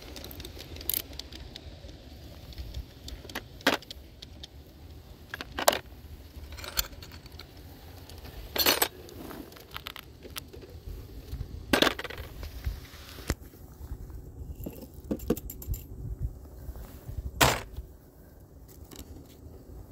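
Small plastic model-railway figures clicking and clattering as they are picked off a station platform and dropped into a plastic storage bin: a sharp click or clatter every couple of seconds.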